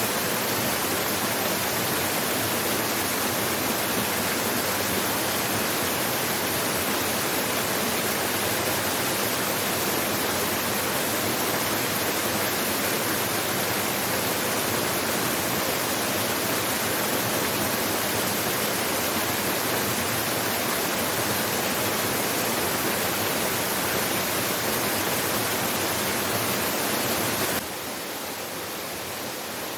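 Waterfall, a steady, even rush of falling water, dropping abruptly to a quieter level near the end.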